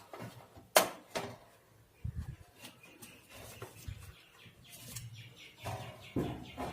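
Faint clicks and handling noises as cable connectors are plugged into an amplifier's display board: two sharp clicks about a second in, then scattered soft knocks and rustles.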